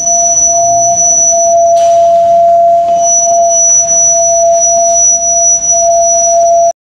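A loud, steady electronic drone tone held on one pitch, with a thin high whistle above it, typical of a horror-film soundtrack. It cuts off suddenly just before the end.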